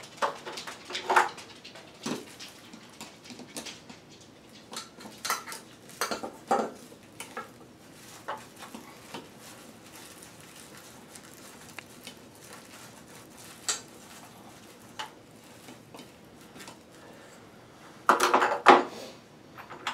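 Scattered metallic clicks and clinks from a nut driver turning the green ground screw on a steel fixture mounting strap in a ceiling box, with a louder burst of handling near the end.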